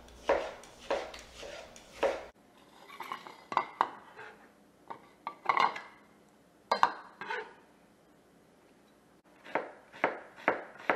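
Chef's knife chopping tomato and onion on a plastic cutting board: short knocks of the blade hitting the board, steady at first, sparse in the middle, then a quick run of chops near the end.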